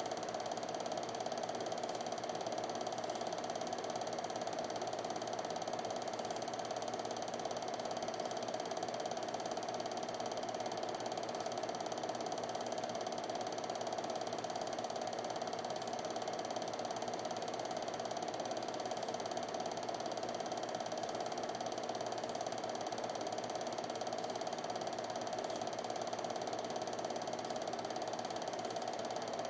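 Home-movie film projector running, a steady, unchanging mechanical sound with no other sound on top.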